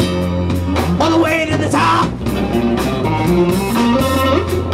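Live blues-rock band playing: electric guitar over a steady bass line and drum kit.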